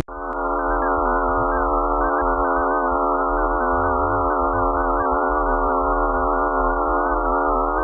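Eerie electronic drone presented as a sound from space: a dense stack of steady tones, the higher ones wavering and shimmering, over a low hum. It cuts in abruptly.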